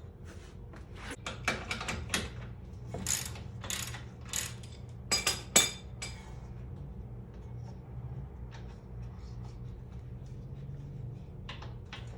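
Irregular metallic clinks and clanks of hand tools on the suspension bolts of a car, loudest about five to six seconds in, then a few fainter taps, over a steady low hum.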